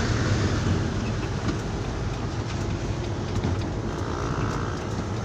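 Steady low engine drone and road noise heard inside a truck's cab while it drives slowly through city traffic.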